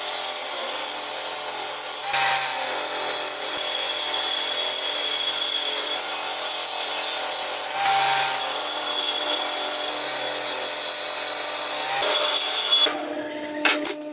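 Power saw cutting wood, a steady cutting noise with a motor whine. About thirteen seconds in the cut stops, leaving a lower hum and a few knocks.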